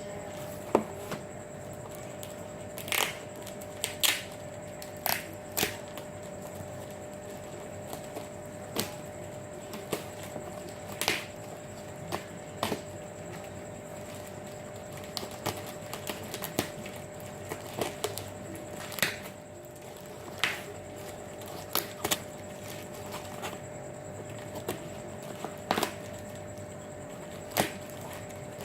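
Cardboard shipping box being opened by hand: irregular sharp cracks and crinkles of cardboard and packing tape, spaced a second or more apart.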